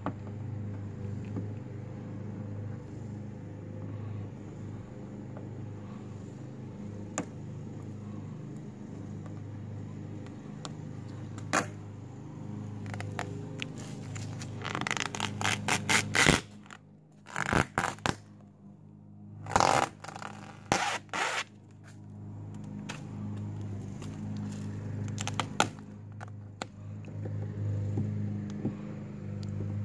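Vinyl wrap film being peeled by hand off a car's body panels, crackling and tearing in several loud spells around the middle, with a few sharp clicks. A steady low hum runs underneath.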